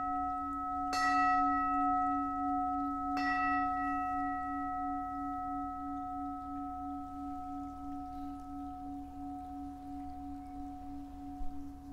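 Altar bell struck twice, about a second and about three seconds in. Each strike rings on in a long, slowly fading tone, carried over from a strike just before. It is rung at the elevation of the chalice during the consecration at Mass.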